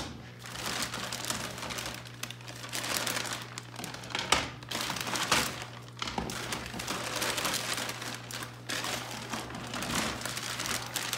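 A clear plastic parts bag crinkling and rustling as hands dig through it and pull out plastic roll-cage pieces, with a few sharp clicks along the way and a steady low hum underneath.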